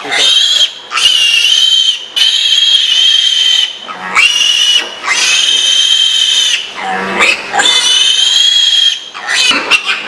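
Piglet screaming while being castrated by hand: a string of long, shrill, high-pitched squeals, one after another with only brief breaks for breath.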